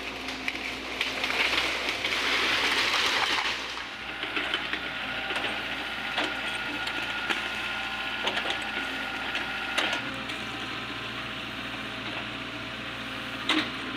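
A LOVOL FR80E2 small excavator running and working, with a louder, hissier surge for a couple of seconds near the start. Scattered sharp cracks and knocks come through over the engine, the loudest near the end.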